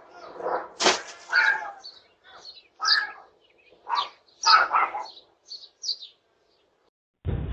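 A dog barking repeatedly at irregular intervals, heard through a doorbell camera's microphone.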